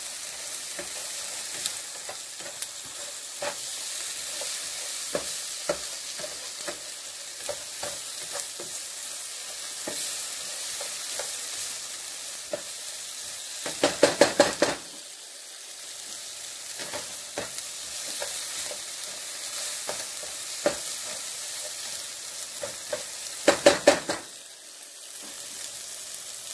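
Sliced bell peppers and onions sizzling in a frying pan with a steady hiss as they are browned, while a utensil stirs them with scattered light clicks. Twice, about halfway through and again near the end, a quick run of loud clatters lasts about a second.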